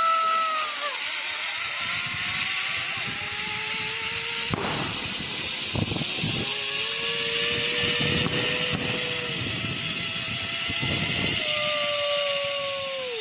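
Zipline trolley running along its cable: a steady rushing hiss, with a whining tone that slides slowly up and down. A few sharp cracks come through about four and a half, six and eight seconds in.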